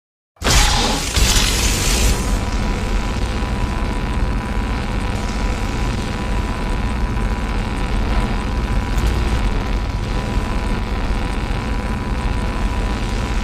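A sudden boom about half a second in, followed by a steady low rumble.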